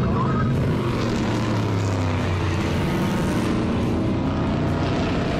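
Several street stock race cars' engines running at speed around a paved oval track, a loud, steady engine sound.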